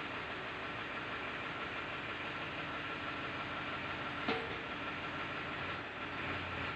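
Tractor engine running steadily, with one sharp knock a little over four seconds in.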